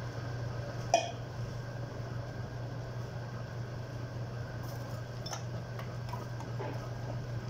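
A steady low hum, with a sharp metallic clink about a second in. Later a metal ladle stirs a steel pot of simmering stew, tapping lightly against the pot a few times.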